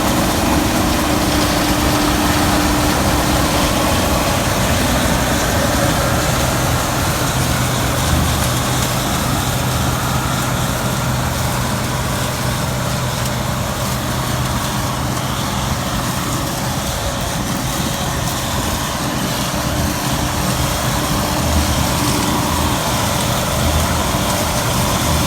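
Gleaner M2 combine running steadily while harvesting soybeans: an even engine drone with steady hums and a noisy rush of machinery over it.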